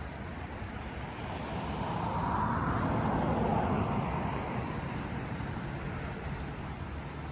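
A vehicle passing by, its noise swelling to a peak about three and a half seconds in and fading away with a slight drop in pitch, over a steady rumble of wind.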